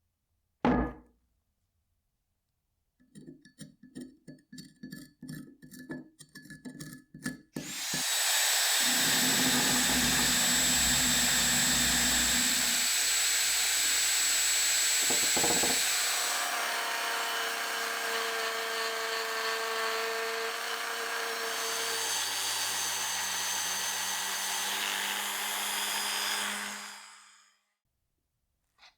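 A handheld electric power tool runs steadily for about 19 seconds, then winds down. Before it, a quick series of short scraping strokes.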